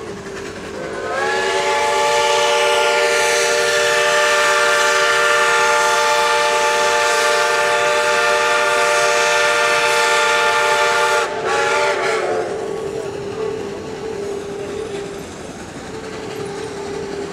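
Steam whistle of Shay #6, a three-truck geared steam locomotive, blown as a station approach signal. It gives one long blast of about ten seconds, several notes sounding together and sliding up in pitch as it opens, then a brief second blast before fading. The steady running noise of the train carries on underneath.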